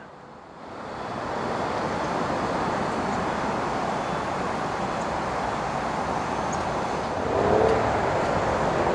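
Mercedes-Benz SLK55 AMG's 5.5-litre V8 idling, a steady hum that fades in over the first second or two and gets a little louder about seven seconds in.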